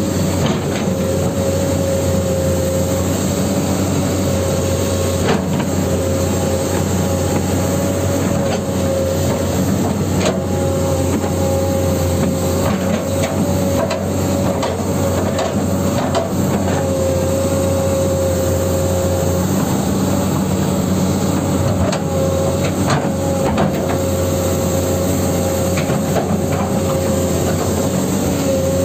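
Huina 1594 RC excavator's electric drive motors whining as it crawls on its tracks. The whine rises and falls in strength as the tracks start and stop, over a steady hum, with scattered clicks and clatter from the gears and track links.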